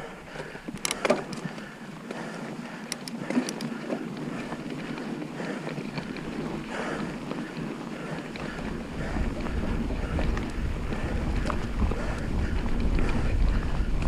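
Mountain bike running fast down a dirt forest trail: tyre noise and clicks and rattles from the bike, with wind rumbling on the microphone that grows louder in the second half.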